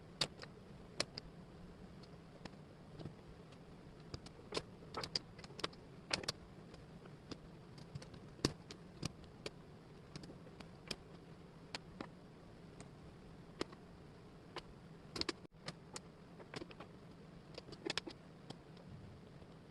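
Wooden jigsaw puzzle pieces clicking and tapping as they are picked up, shuffled and set down, in quick irregular knocks over a faint steady hum.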